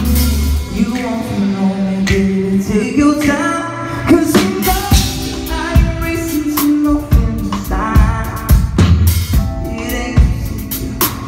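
Band playing a song live: a singer's voice over drum kit and amplified instruments.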